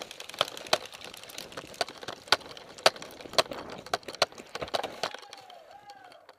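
Scattered sharp cracks from an airsoft firefight, irregular at several a second, thinning out and fading after about five seconds.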